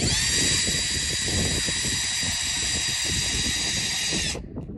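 Cordless drill running at a steady speed, its bit boring a hole into an apple: a high, even whine that starts suddenly and cuts off shortly before the end.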